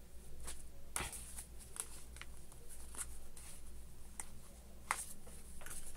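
Paper pattern pieces and sherpa-lined fabric being handled: soft rustling with scattered light clicks, one sharper click near the end, over a low steady hum.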